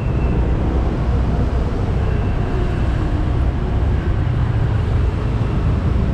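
Steady low rumble of a motorcycle riding past slow-moving traffic: the bike's engine and road noise, heard from the rider's seat.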